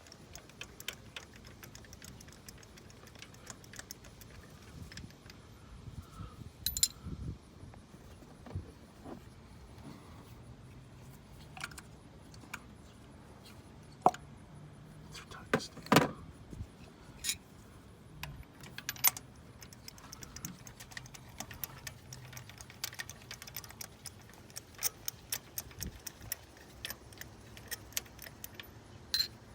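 Scattered metallic clinks, taps and clicks of hand tools and sockets on metal, with a few sharper knocks partway through and quicker runs of clicking near the end.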